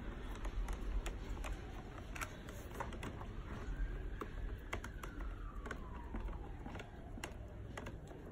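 Hand screwdriver turning a screw into a plastic rocker frame's hinge bracket: a scatter of small, irregular clicks and ticks as the screw is driven and tightened.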